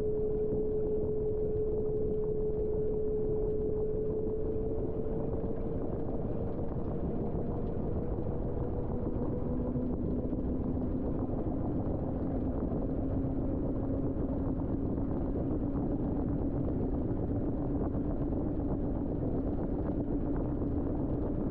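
LG TROMM WashTower front-load washing machine spinning its drum in the spin cycle: a steady rumble with a motor whine that slowly rises in pitch, joined about ten seconds in by a second, lower whine that also slowly climbs.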